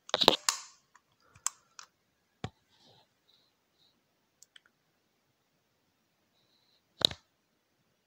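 Sharp plastic and metal clicks from handling a Master Lock Select Access 5400 key safe and its spring-loaded shackle release catch: a quick cluster of clicks at the start, a few single clicks over the next couple of seconds, then one sharp click near the end.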